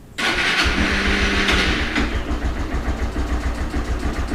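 Honda CG 160 single-cylinder four-stroke motorcycle engine electric-started: the starter whirs and the engine catches in about half a second, then settles into an even idle beat. The owner says it has made an engine noise since new that she takes for valve knocking.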